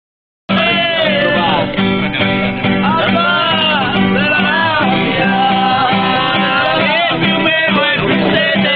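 Music: a song with a singing voice over guitar accompaniment, starting suddenly about half a second in.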